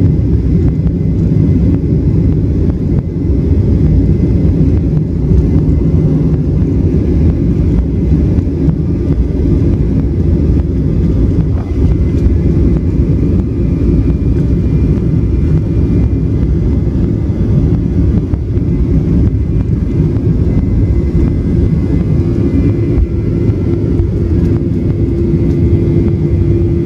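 Jet airliner's engines at takeoff thrust with the undercarriage rumbling on the runway, heard from inside the cabin over the wing during the takeoff roll. A steady loud rumble, with a hum coming in over the last several seconds.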